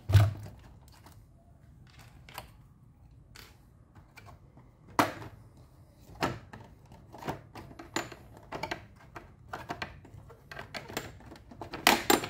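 Scattered clicks and taps of the body clips being pulled and the plastic body shell of an RC nitro buggy being handled and lifted off its chassis, with a quick run of clicks near the end.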